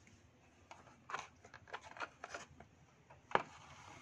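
Faint handling noise of a pen box being turned over in the hands: a run of small clicks and rustles, then a sharper tap about three seconds in.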